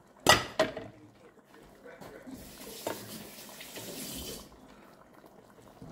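Sharp knock of a kitchen utensil or pot near the start, then a kitchen tap running for about two seconds.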